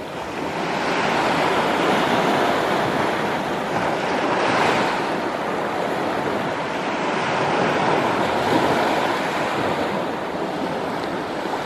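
Small sea waves breaking and washing up a sandy, pebbly shore, the wash swelling and falling away every few seconds.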